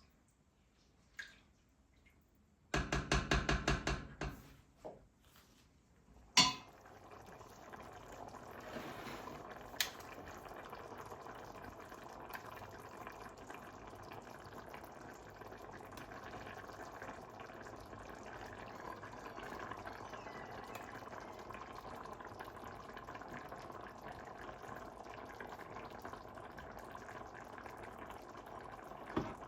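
A short loud buzzing burst about three seconds in, a sharp click a few seconds later, then a steady rush of water that runs on to the end.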